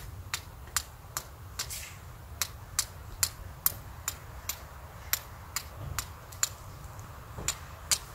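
Steel fire striker (vuurslag) struck again and again against a stone to throw sparks: a regular series of sharp clicking strikes, about two to three a second, the fire not yet catching.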